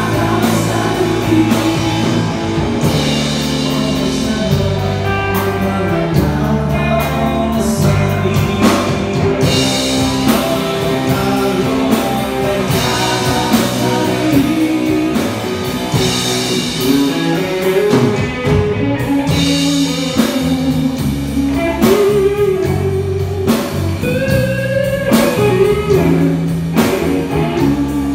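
Live rock band playing a song: electric guitar, electric bass and drum kit with a male lead vocal.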